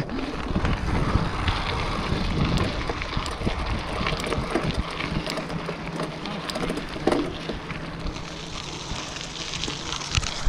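Mountain bike rolling fast over gravel and broken tarmac: tyres crunching and the bike rattling with many small clicks, under wind rushing over the microphone.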